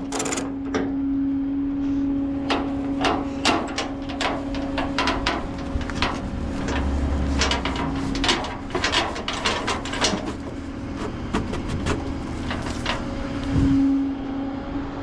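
Run of sharp metal clicks, clanks and knocks from tow-truck tie-down straps and their hooks being worked loose, over an engine running with a steady hum.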